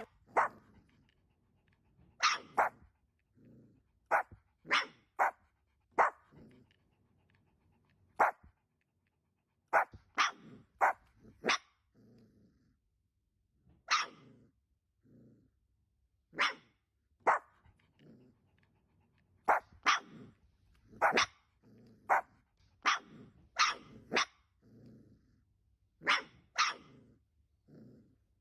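A puppy making short, sharp yips at irregular intervals, often one or two a second, with softer low grunts between them.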